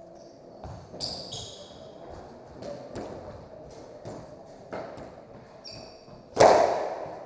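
Squash rally: a squash ball struck by rackets and smacking off the court walls about every second, with short sneaker squeaks on the hardwood floor. The loudest hit comes near the end and rings on in the enclosed court.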